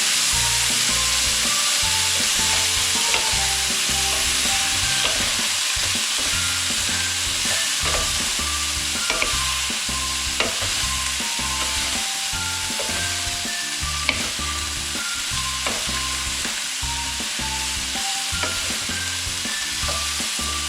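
Blanched broccoli florets sizzling in hot oil with garlic as they are stir-fried, a spatula clicking and scraping against the pan now and then, over background music.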